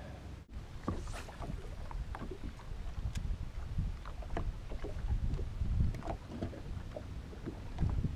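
Wind rumbling on the microphone and small waves lapping and slapping against a bass boat's hull, with scattered light knocks.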